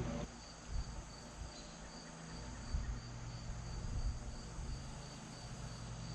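Cricket chirping in an even, high-pitched rhythm of about three chirps a second, with a few low bumps on the microphone.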